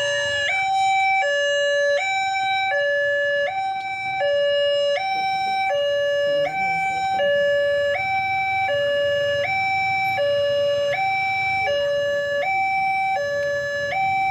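Electronic two-tone level-crossing warning alarm, switching steadily between a high and a low note about every three-quarters of a second while the crossing barriers come down.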